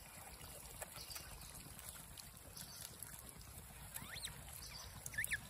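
Faint rustling and small clicks from a troop of rhesus macaques feeding on the ground. Near the end come two short high calls, each rising and falling in pitch.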